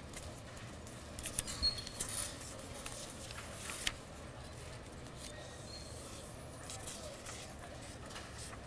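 Quiet room hum with a few faint sharp clicks and light rustles, most of them between about one and four seconds in.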